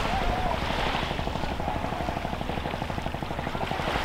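A fishing boat's engine chugging steadily out on the bay, with small waves lapping at the shingle shore.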